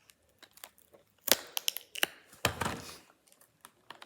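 Packaging being opened by hand: a few small clicks, then crackling, crinkling and tearing from about a second in, loudest just past the middle.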